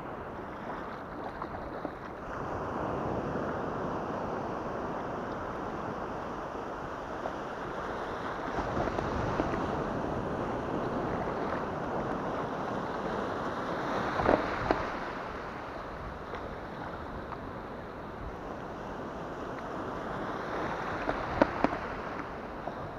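Surf washing and foaming around a kayak's hull as it is paddled through breaking waves, with wind buffeting the microphone. A few sharper splashes stand out, the loudest about fourteen seconds in and near the end.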